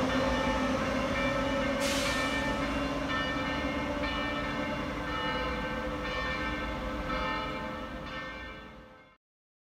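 Electric Frecciarossa ETR 500 high-speed train moving away along the tracks. Its rumble carries a set of steady whining, ringing tones, with a short hiss about two seconds in. The sound fades out near the end.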